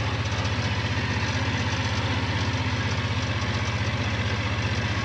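Engine of a small riding farm vehicle running steadily, an even low pulsing with no change in speed.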